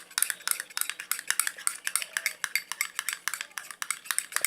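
A utensil stirring thickening slime in a bowl, with rapid clicking taps against the bowl, several a second. The mixture of glue, conditioner and boric-acid water is firming up as it is stirred.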